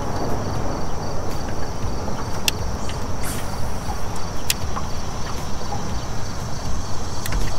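Steady rushing open-air noise with insects trilling in a fast, even high-pitched pulse, and a few sharp clicks.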